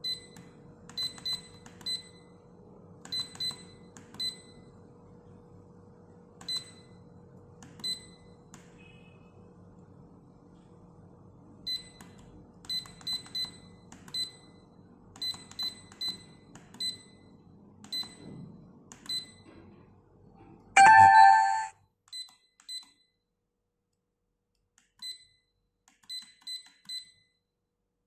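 A 3D LED digital clock's electronic beeper giving short, high beeps as its setting button is pressed, singly and in quick runs of two to four, while the hour is stepped forward. About 21 seconds in, a brief, much louder burst of several tones sounds, and after it the faint low hum stops.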